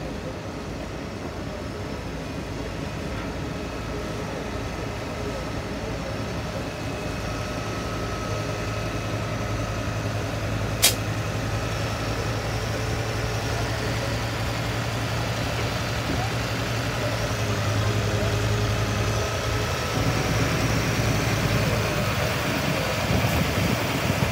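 Diesel engine running steadily with a low hum, slowly growing louder as the railcar closes up on a stopped rail-road excavator. A single sharp click comes about eleven seconds in.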